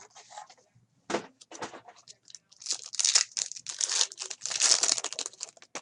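Plastic card-pack wrapper being torn open and crinkled by hand: a few short crackles, then about three seconds of loud, dense crinkling near the end.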